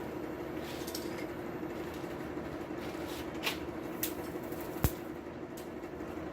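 Hardwood-charcoal forge fire burning under forced air, with a steady hum. About three and a half, four and five seconds in come sharp cracks, the last the loudest, from the burning charcoal snapping.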